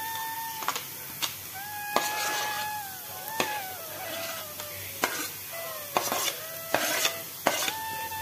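A steel spoon scraping chopped cabbage and diced carrot off a plastic chopping board into a steel pan, striking the board and pan with several sharp clinks, while the vegetables already in the pan sizzle. A soft flute melody plays in the background.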